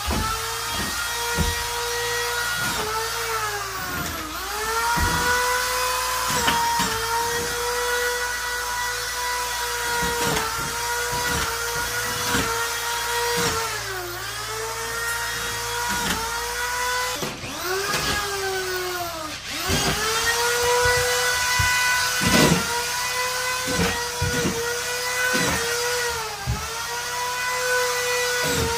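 Electric power drill running with a steady whine that sags in pitch and recovers again and again as it is loaded, probably each time it drives a screw. Scattered knocks are heard between the dips.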